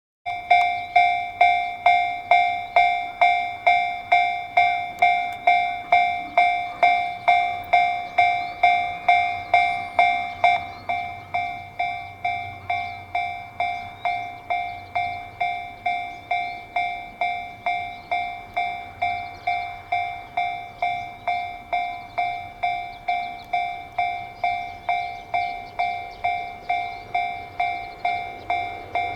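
Japanese level-crossing warning bell ringing its repeated clang at about two strikes a second, getting quieter about ten seconds in.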